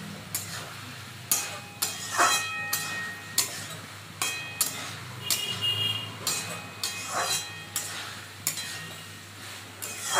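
Metal spatula scraping and knocking against an aluminium kadai while stirring diced vegetables, giving irregular clinks, each ringing briefly, about one or two a second. A steady low hum runs underneath.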